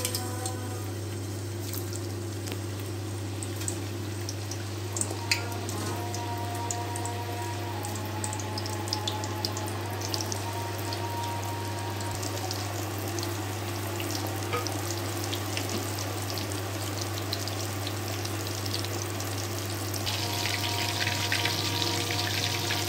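Chana dal seekh kababs deep-frying in hot oil in a kadai: a steady sizzle with scattered pops and crackles. It grows louder and denser near the end.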